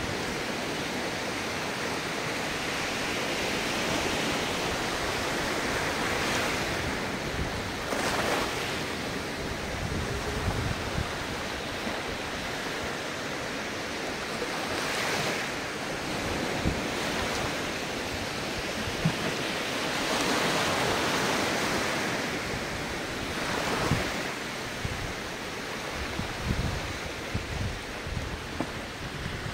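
Ocean surf washing in and breaking in slow surges, with several stronger breaks spaced several seconds apart. Low wind rumble on the microphone.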